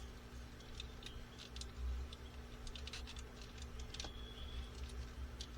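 Small, sharp plastic clicks and taps as the parts of a transforming toy robot figure are handled and moved, coming in scattered clusters.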